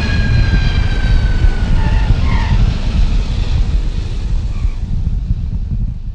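Aircraft passing by: a high engine whine falling slowly in pitch over a deep rumble, the whine dying away about halfway through and the rumble fading toward the end.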